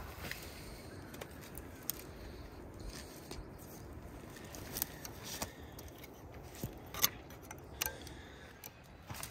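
Dry branches and twigs being handled and pulled from a brush pile: rustling with several sharp snaps and cracks, the loudest about two-thirds of the way through.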